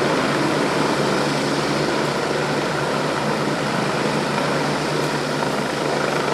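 Helicopter hovering overhead: a steady drone of rotor and engine.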